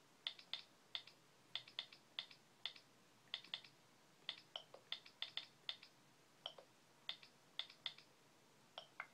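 Faint typing on a computer keyboard: short key clicks in irregular runs of two to four, with small pauses between.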